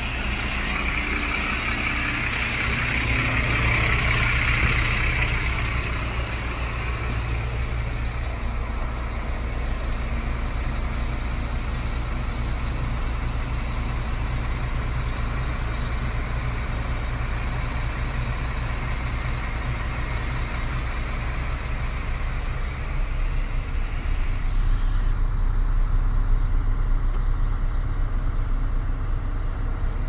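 The truck's 310 bhp turbo Euro 5 diesel engine idling steadily with a low rumble. A hiss sits over it in the first few seconds, and the low rumble grows heavier about three-quarters of the way through.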